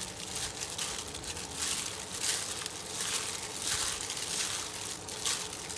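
A hand in a thin plastic glove kneading and squeezing marinated sliced pork in a stainless steel bowl: the glove crinkles and rustles with each squeeze, over and over, about every half second.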